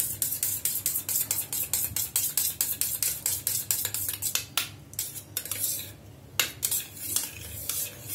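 A spoon stirring thick sauce in a small stainless-steel bowl, clinking against the metal sides about five times a second; the strokes slow and pause briefly about two thirds of the way through, then carry on more sparsely.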